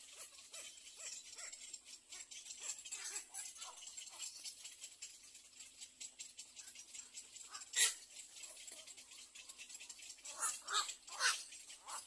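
Little egret chicks calling in the nest: a steady run of short, soft calls, with a louder harsh call about eight seconds in and three or four more close together near the end.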